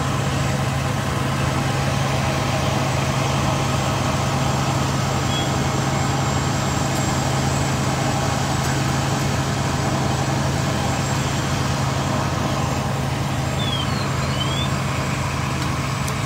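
Fire truck's diesel engine running steadily at the scene, an unbroken low drone.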